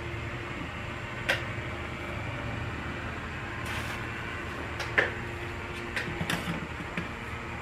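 Several sharp clicks and taps, the loudest about five seconds in, from the aluminum front servo parts being fitted by hand into a 47RE automatic transmission case, over a steady low hum.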